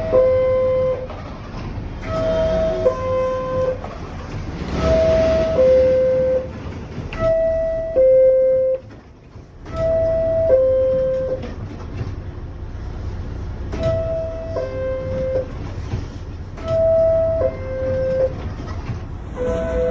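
R62A subway car door chime, a two-note descending ding-dong, sounding about eight times in succession over the low rumble of the train. The chime is the warning that the doors are about to close.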